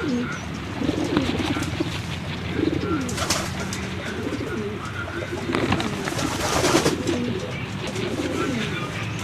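A flock of domestic pigeons cooing, several birds' calls overlapping one another without pause. Twice, about three seconds in and again for a second or so past the middle, a louder rustling noise rises over the cooing.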